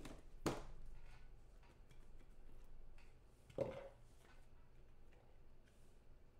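Faint handling noises from a trading-card box being opened and its stack of cards lifted out: a sharp click about half a second in and a duller knock a few seconds later, with light rustling between.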